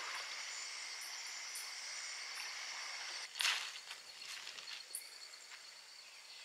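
Night insect chorus: a steady, high-pitched trilling that cuts off about halfway through, followed by a brief scuff. A fainter, pulsing high trill and a few small clicks continue after it.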